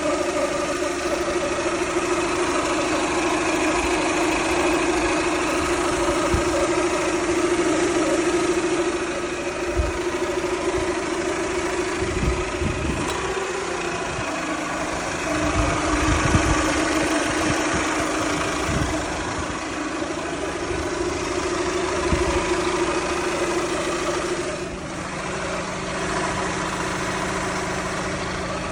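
Toyota Camry 2.2-litre four-cylinder engine idling with a steady whine. The owner suspects the alternator or the water pump, though a mechanic called it normal.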